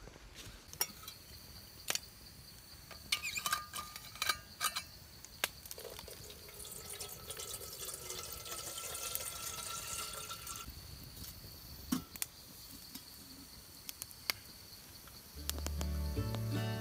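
A few sharp clinks, then water poured from a metal bottle into a stainless steel pot for about four seconds.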